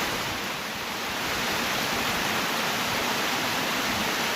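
Steady rush of river water spilling over a small dam.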